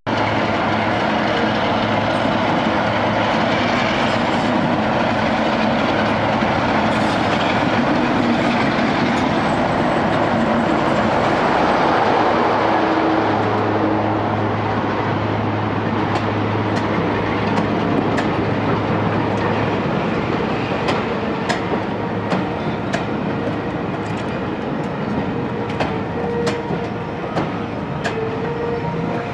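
Train running on a heritage railway: a steady rumble and hum with low steady tones. From about halfway a run of sharp clicks joins in, wheels passing over rail joints.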